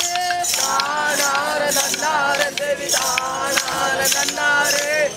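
A group of devotees singing a Bharani pattu together, in a loud unison chant. Sharp clacks and a rattling jingle keep the beat through it.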